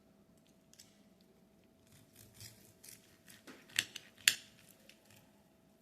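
Cutlery scraping and clicking against a dish while roast chicken is cut, with two sharp clinks about four seconds in.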